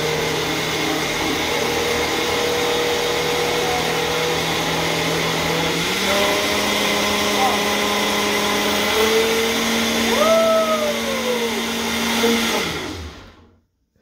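Ninja countertop blender running, blending a liquid sauce in its jar with a steady motor hum; the hum steps up in pitch about six seconds in. Near the end the motor winds down with a falling pitch and stops.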